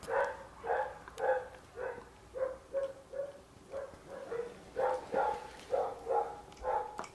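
A dog barking repeatedly, short pitched barks at about two a second.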